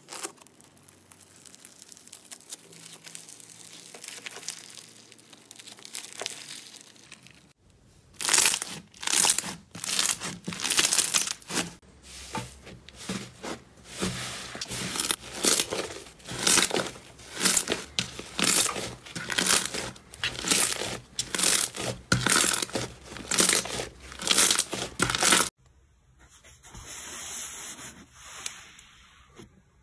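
Fingers pressing and poking slime, giving crackling, popping squishes. It is soft for the first several seconds, then a long run of loud crackles comes about one to two a second as fingers press into a yellow slime topped with crunchy sprinkles, then it goes quieter near the end.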